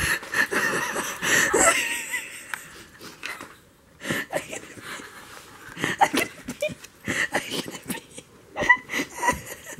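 Two women laughing helplessly in wheezing, breathy fits that come in short, irregular bursts.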